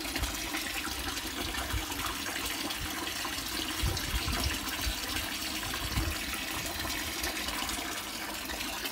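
A thin stream of water splashing steadily into a water-filled plastic tank, with a few soft low knocks here and there.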